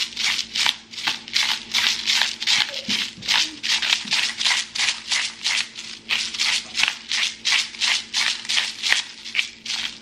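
Salt grinder bottle cranked over food, grinding coarse salt in quick gritty strokes, about three a second.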